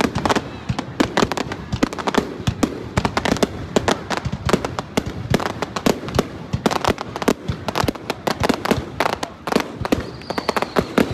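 Aerial fireworks display: a dense, rapid run of bangs and crackles as shells and rising comets burst overhead.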